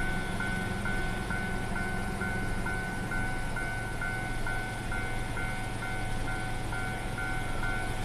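Japanese railway level-crossing warning bell ringing, a repeating electronic ding about twice a second. It sounds while the crossing is closed for an approaching train, over a low, steady rumble.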